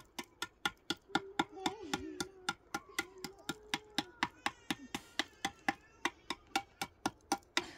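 Steady, fast rhythmic knocking, about four to five sharp strokes a second, like a knife chopping on a board.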